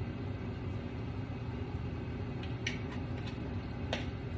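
Air fryer running with a steady low fan hum, with two faint light ticks near the end.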